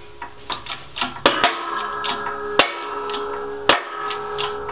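Hydraulic bottle jack on a shop press being pumped by its long handle: an uneven run of metallic clicks and knocks with a few much sharper clanks among them, as the press forces a tight-fitting bearing onto a rear axle shaft.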